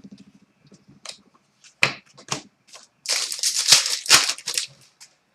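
Trading cards being handled and shuffled by hand: scattered light clicks, then about a second and a half of dense rustling partway through.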